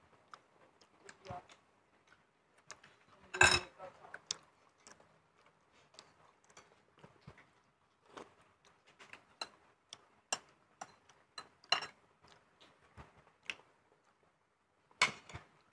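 Sparse light clicks and taps of spoons on plates and bowls during a shared meal, with one louder sound about three and a half seconds in.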